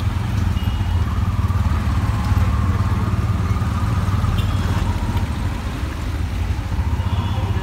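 Tuk tuk (auto rickshaw) engine running steadily, heard from inside the open cabin while crawling through street traffic, with a low, fast chugging pulse.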